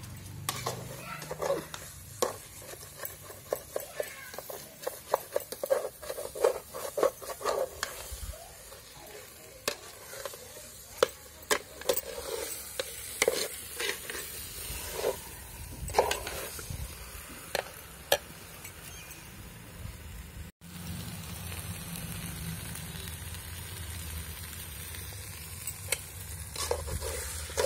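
A steel spatula scraping and clacking against a steel pot as chicken is stir-fried in a thick spice paste, with the masala sizzling. The strokes are dense for about twenty seconds, then thin out after a short break.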